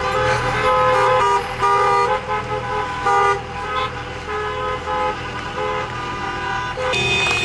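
Car horns honking repeatedly in a run of short and longer toots over the rumble of passing traffic. A different, brighter horn starts near the end.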